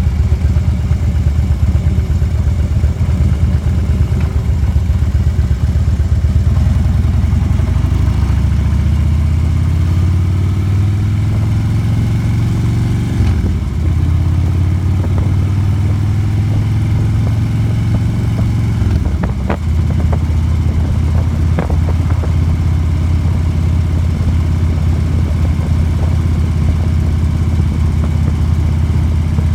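Motorcycle engine running under way, heard from on the bike with steady wind rush. Its pitch climbs steadily about a third of the way in, drops suddenly at a gear change, and drops once more about two-thirds of the way through.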